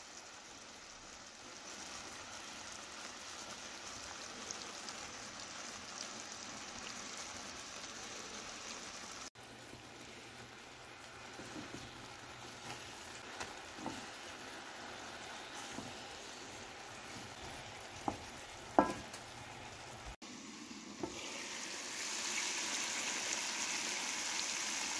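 Eel pieces and garlic cloves bubbling and sizzling in a thickening soy-based braising sauce in a pan, with a spatula stirring and a few light knocks against the pan. The bubbling grows louder near the end.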